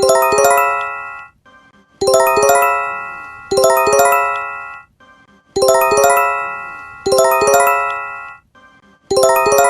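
Japanese emergency alert chime: a quick rising run of bell-like notes that rings out and fades, sounded twice about a second and a half apart. The pair repeats roughly every three and a half seconds.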